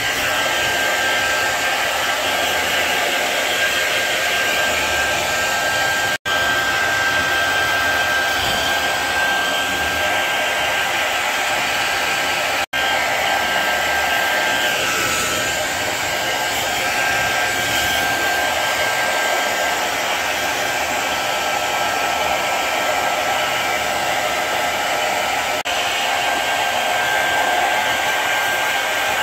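Hair dryer blowing steadily to dry a freshly bathed dog's coat: a constant rushing noise with a steady high whine in it. It breaks off for an instant twice.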